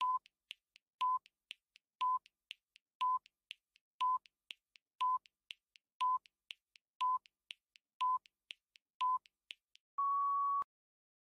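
Countdown timer sound effect: a short electronic beep once a second, ten in all, with soft faster ticks between them, ending in one longer, slightly higher beep as the timer reaches zero.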